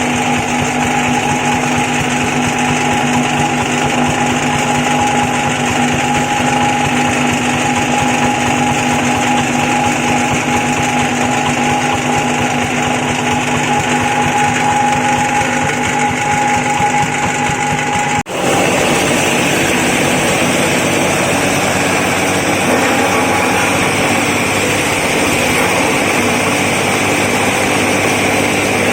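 Feather and corncob flour-grinding mill running steadily with a clear hum. About two-thirds of the way through the sound breaks off for an instant and comes back rougher and noisier, without the hum.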